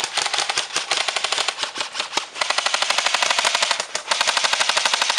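Airsoft rifle firing long full-auto bursts: a rapid, even run of about fifteen shots a second. There are short breaks about two seconds in and again about four seconds in.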